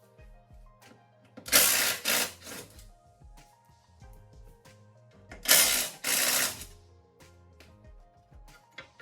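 Background music with a steady beat. Over it come two loud bursts of rasping hand-tool noise, each about a second long, about 1.5 s and 5.5 s in, as the bolts of the car's underbody support plate are undone.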